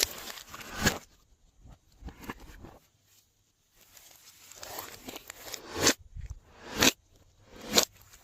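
Glossy slime being worked by hand: sticky squelching and crackling, with sharp pops as it is pressed and pulled, about once a second in the second half and a brief pause near the middle.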